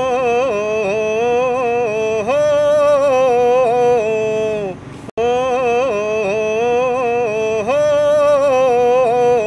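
A wordless sung melody, a vocal line held and bent with small ornaments, with brief breaks between notes. One phrase of about five seconds, then the same phrase again.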